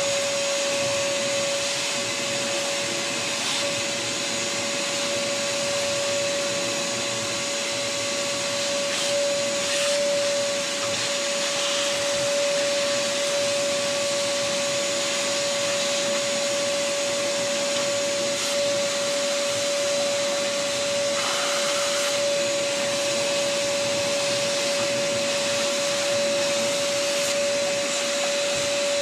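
Shop vacuum running steadily with a constant whine, its hose sucking caked grease and dirt off the top of an engine.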